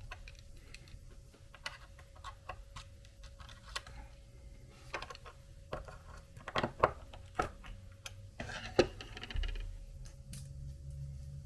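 Irregular small clicks and taps of a miniature RC crawler wheel and its beadlock ring and screws being handled and pressed together, with a few sharper knocks in the second half.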